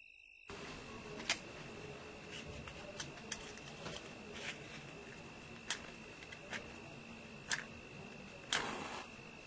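Irregular light clicks and taps of small objects being handled by hand, with a few sharper ones, over a faint hiss and a steady thin high whine.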